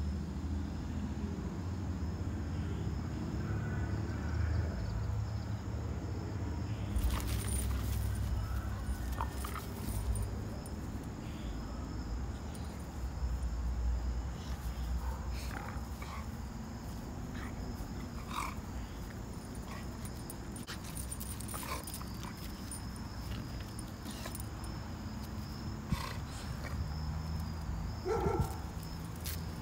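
American bully dogs, an adult and a puppy, play-fighting: scuffling with a few short yips and growls, the loudest near the end, over a low rumble and steady chirping crickets.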